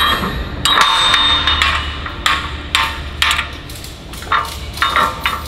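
Metal tie-down hardware (chain, hooks and a strap ratchet) being handled on a trailer deck: a long clattering clank with a metallic ring about a second in, followed by a string of sharp knocks and clinks roughly every half second.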